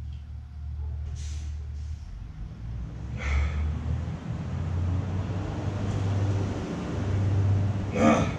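A person breathing hard in short, sharp breaths over a low steady rumble, with a louder forceful breath near the end.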